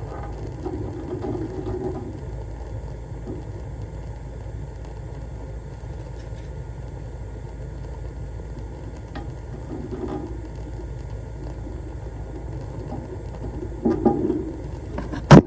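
Boiler's gas pilot flame burning steadily with a low rumble while the pilot button is held down so the thermocouple can heat. Two loud sharp knocks come right at the end.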